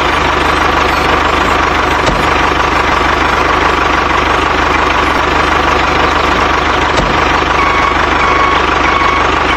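Tractor engine running steadily at idle, with an even low beat and no revving.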